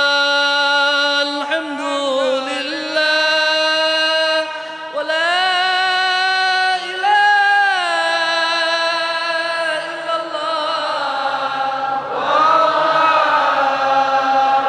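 Melodic Islamic zikir chanting: a voice holds long notes and slides slowly between them. About twelve seconds in the sound grows louder and fuller.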